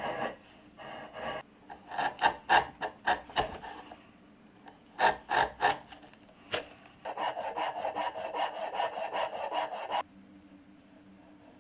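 Hand chisel paring a wooden block: two clusters of crisp crackling cuts, then a steady scraping stroke lasting about three seconds that stops abruptly, leaving a faint low hum.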